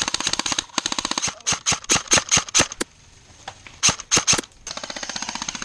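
Airsoft guns firing: rapid full-auto bursts at first, then a string of separate shots about four a second, a short lull, a quick handful of shots, and another long full-auto burst near the end.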